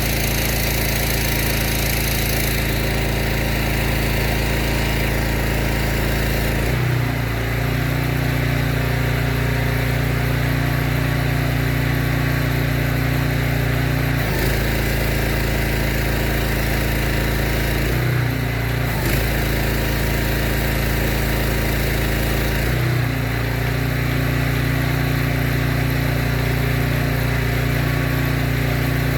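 A pressure washer's petrol engine running steadily, its note changing briefly four times as the load shifts.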